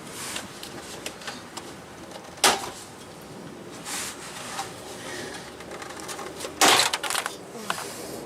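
Scattered clicks and knocks of tools and parts being handled during garage work, with one sharp knock about two and a half seconds in and a louder cluster of knocks near the end.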